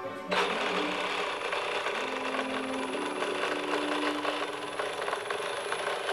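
Small electric drive motor and propeller of a 1/72 scale RC model S-100 Schnellboot running steadily, a hissy buzz with a thin high whine, cutting in suddenly about a third of a second in.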